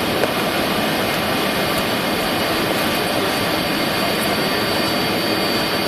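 Steady jet engine and airflow noise inside the passenger cabin of a Tupolev Tu-204 airliner on descent, with a thin, steady high whine over it.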